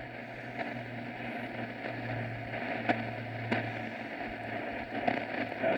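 Shortwave radio static and hiss from a Grundig Satellite 750's speaker on a weak or empty frequency, with a low steady hum that fades out about two-thirds through and a few sharp crackles.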